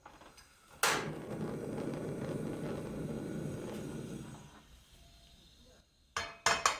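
Kitchenware being handled: a sharp knock about a second in, followed by a few seconds of low rumbling that fades away, then two or three quick clinks near the end.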